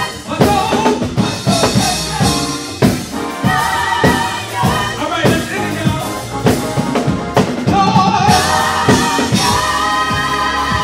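Live gospel music: a lead singer and backing vocalists singing over a drum kit, with the voices wavering and swelling and the drums keeping a steady beat.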